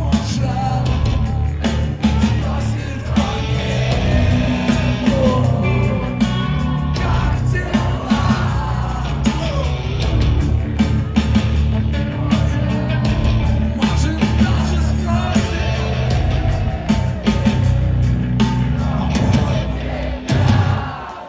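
Live rock band playing loud and continuously, with heavy guitars, bass and drums and a voice singing at times.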